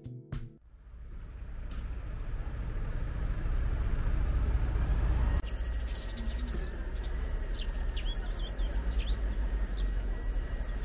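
City street ambience: a steady low rumble of traffic that fades in, with a few short bird chirps over it in the second half.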